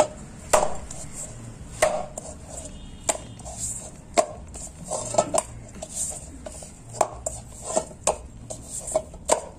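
Maida dough being kneaded by hand in a stainless steel bowl, the stage after water has been added to form the naan dough. The dough slaps and the steel bowl knocks and clanks irregularly, roughly once a second.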